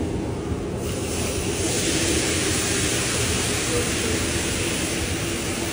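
Water poured from a metal pan onto a hot flat-top griddle sizzles and hisses as it flashes to steam, lifting the baked-on grease for cleaning. The hiss starts about a second in and holds steady over a low rumble.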